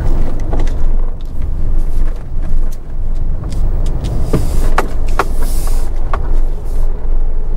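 Car driving into a gravel parking lot, heard from inside the cabin: a steady low rumble, with a few sharp clicks and a short hiss between about four and six seconds in.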